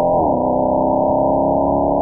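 Mercedes-AMG SL63's V8 exhaust note under way. The revs fall sharply in the first half second, then hold a steady drone.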